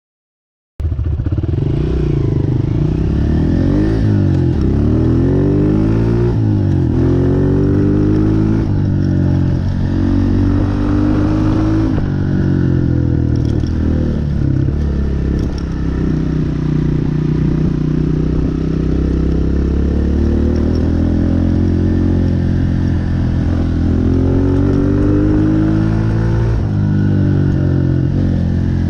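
Honda CRF125F big wheel dirt bike's single-cylinder four-stroke engine being ridden hard, revving up and dropping back over and over as it runs through the gears. The engine cuts in suddenly about a second in.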